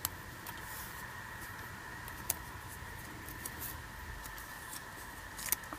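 Faint handling sounds of cotton threads and a plastic strip between the fingers: a few small clicks, the sharpest a little past two seconds in and near the end, over a steady faint hum.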